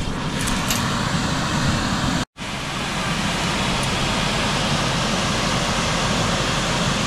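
Steady loud rushing of air, even and unbroken except for a brief total cut about two seconds in.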